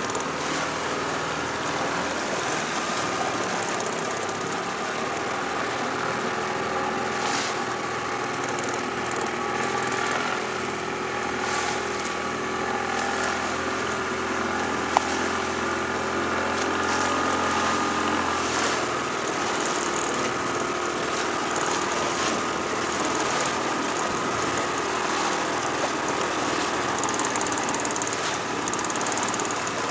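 Small outboard motor running steadily at cruising speed, with water rushing past the hull; its low hum drops out about two-thirds of the way through, and there is one sharp click midway.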